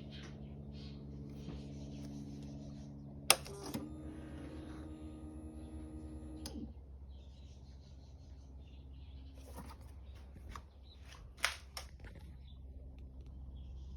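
2007 Suzuki GSX-R600 being tried on the key: a sharp click, then a steady electric whine for about three seconds that stops abruptly. A few more sharp clicks follow, over a low steady hum. The engine does not fire.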